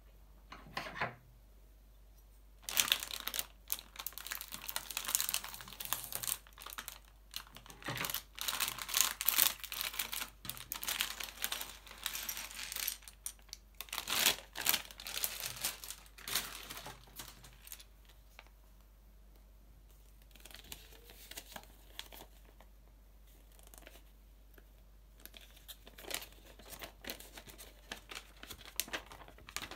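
Thin plastic LEGO polybag being torn open and crinkled in the hands, a dense crackling rustle from about three seconds in to about seventeen seconds. After that come softer, scattered rustles as the folded paper instruction leaflet and loose bricks are handled.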